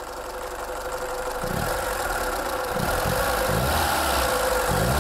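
Classic Lada's engine, running with its gearbox removed and two flywheels bolted to the crankshaft, being revved by hand at the throttle: the revs build slowly and it grows steadily louder. The extra flywheel mass makes the engine slow to gain revs.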